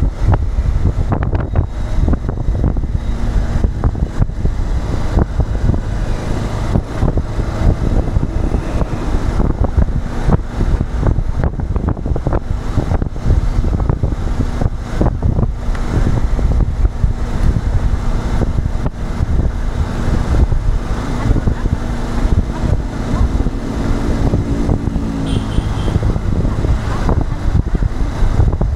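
Wind buffeting the microphone over steady vehicle engine and road noise, as heard while riding through traffic. A low steady tone joins for a few seconds late on.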